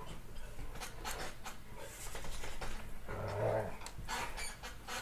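Two dogs, a Labrador and a hound, play-wrestling on a bed: scuffling and rustling of paws and bedding, with a short growl a little past three seconds in.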